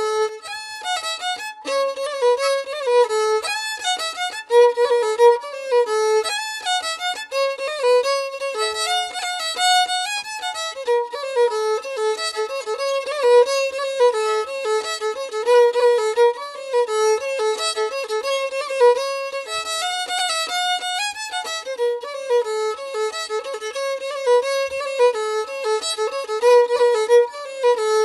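Background music: a solo fiddle playing a melody of quick notes.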